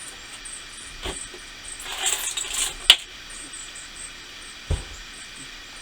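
Objects being handled and moved on a table: a knock about a second in, a short rustle or scrape, a sharp metallic click that is the loudest sound, and a dull thump near the end.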